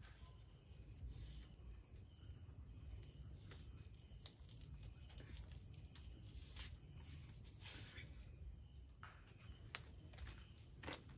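Faint steady chirring of night insects, with scattered soft clicks and taps from bamboo skewers and meat being handled.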